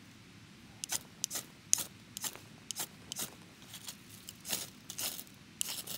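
Ferro rod struck again and again with a steel striker into a tinder nest of birch bark and dry leaves: a quick, irregular run of short rasping scrapes, about two a second, starting about a second in.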